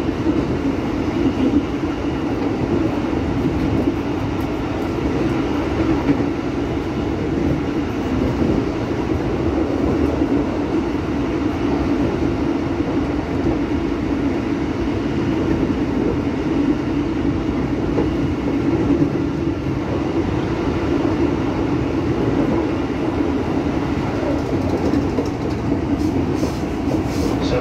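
Cabin running noise of an ex-Tokyo Metro 6000 series electric commuter train moving along the line: a steady rumble of wheels on rail with a constant drone that does not rise or fall.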